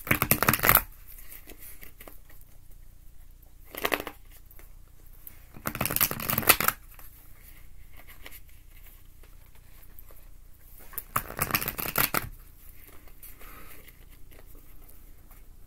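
A deck of tarot cards being riffle-shuffled, four bursts of rapid card-flicking clicks, each under a second long: near the start, a short one about four seconds in, then about six seconds in and about eleven seconds in.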